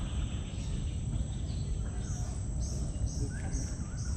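Outdoor wetland ambience: a steady high insect drone, with a run of short high bird-like calls about twice a second starting about two seconds in and a few lower chirps near the end, over a low rumble.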